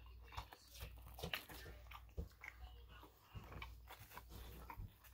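A person chewing a mouthful of egg, sausage and cheese English-muffin breakfast sandwich: soft, irregular mouth clicks and smacks over a faint low hum.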